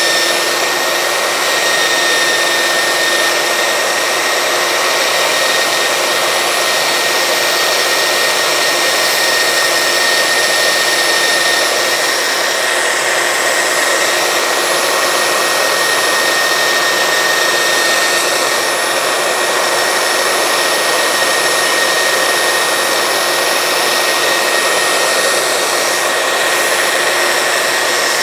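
Makita 9403 4x24-inch belt sander running continuously on its lock-on button, clamped upside down as a stationary sander: a steady motor and belt rush with a constant high whine. A wooden strip is held against the moving belt at the start.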